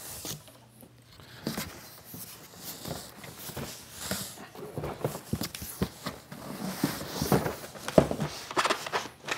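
Large cardboard box, with the printer packed in foam inside, being tipped over and turned upside down on a wooden table: cardboard scraping and rustling with repeated knocks and thumps, the loudest about eight seconds in.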